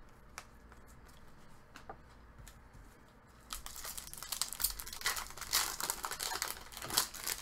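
A trading card pack's foil wrapper being torn open and crinkled by hand, starting about halfway through, after a few faint taps.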